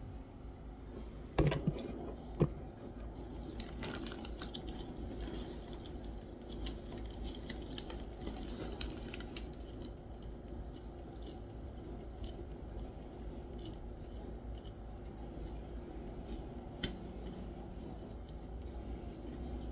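Crinkling of a popcorn snack bag with sharp clicks as popcorn is taken out, mostly in the first half, then faint crunching of a mouthful of popcorn over a steady low hum.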